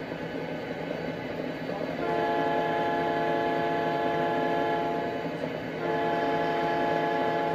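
Sound-equipped model N&W SD45 diesel locomotive blowing its chime horn in two long blasts, the first about three seconds long starting about two seconds in, the second near the end. Under the horn runs the steady rumble of its simulated diesel engine.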